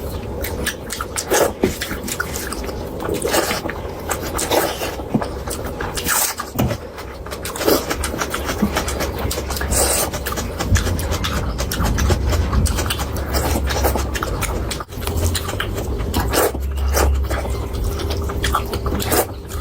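Close-miked eating sounds: wet chewing and repeated lip and mouth smacks, many short clicks over a low steady hum.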